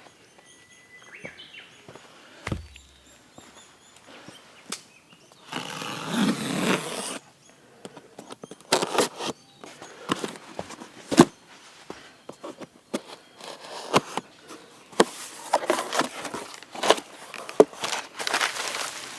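Rustling and irregular sharp clicks and knocks of things being handled, with a longer burst of rustling about six seconds in and faint bird chirps at first.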